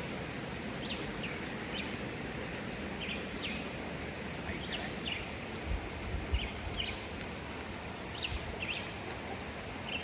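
Steady hiss of a shallow rocky river flowing, with short high chirps from birds or frogs repeating every second or so. Two low bumps come about six seconds in.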